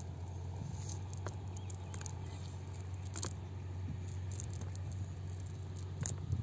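Nylon cast net being handled while fish are picked out of its mesh: scattered light ticks and rustles over a steady low rumble.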